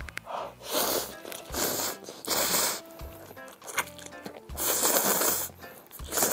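A person slurping spicy instant ramen noodles off chopsticks in several long slurps, the longest about five seconds in, over background music.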